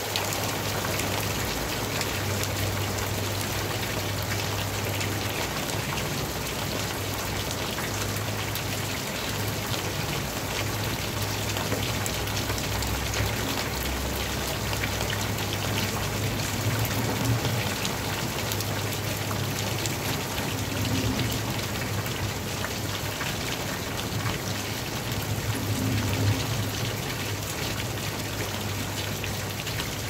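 Steady rain falling into a sheet of standing water on a flat rooftop: a dense, even hiss of drops splashing on the water's surface. A low hum underneath swells and fades.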